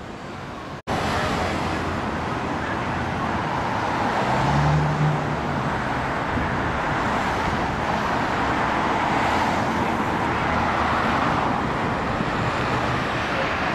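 City street traffic: a steady hum of cars driving past, with a short engine hum about four seconds in. The sound drops out very briefly about a second in.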